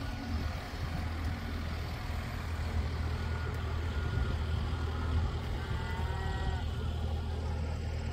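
Vehicle engine running steadily with a low, even hum.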